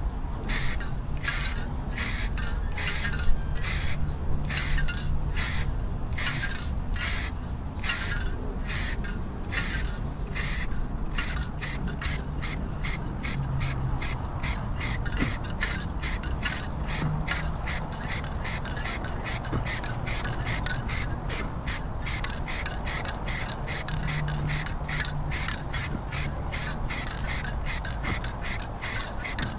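Aerosol can of Rust-Oleum 2X black spray paint hissing in a long series of short bursts as a boat hull gets its second coat. The bursts come about two a second at first and quicken to about three a second from around eleven seconds in.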